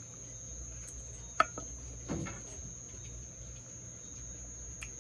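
Steady high-pitched cricket trill, with a sharp click about a second and a half in and a brief soft mouth or eating sound just after two seconds.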